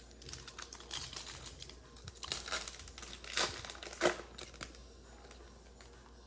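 Plastic wrapper of a trading-card pack crinkling as it is torn open, in a run of sharp crackles that fades out after about four and a half seconds.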